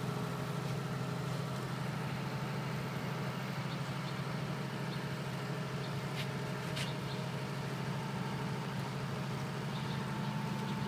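GBPOWER 50 kVA diesel generator set running steadily inside its closed super-silent sound-attenuating canopy: an even, low engine hum with no change in speed.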